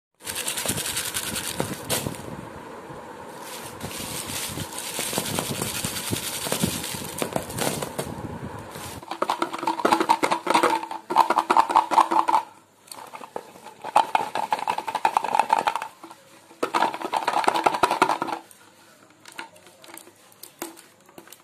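Crinkling foil toffee wrappers handled in the hands, a dense crackle of small clicks for the first several seconds. Then three stretches of a steady buzzing scrape from the clear plastic toffee tub being handled, followed by a few light taps.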